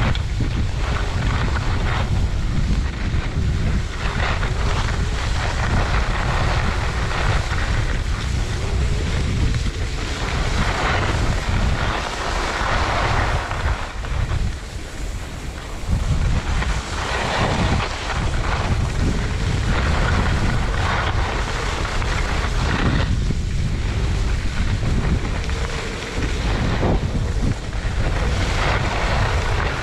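Wind buffeting a GoPro Hero 8's microphone as a skier descends a groomed slope, a steady heavy rumble. Over it, the hiss of skis scraping across packed snow swells and fades with each turn.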